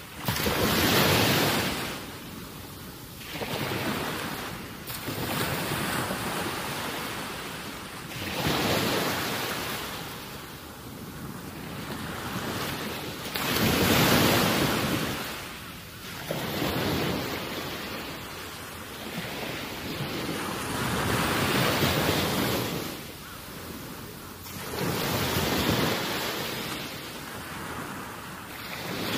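Small waves washing against the shore together with wind on the microphone, a rushing noise that swells and fades every few seconds.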